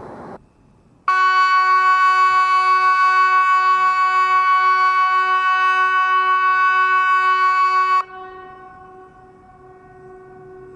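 SiRcom ESP 750 electronic civil-defence siren sounding one loud, steady, horn-like tone with a slight pulsing wobble, about seven seconds long, starting about a second in and cutting off sharply, then echoing away. It is one blast of Sweden's 'Hesa Fredrik' VMA warning signal during a siren test.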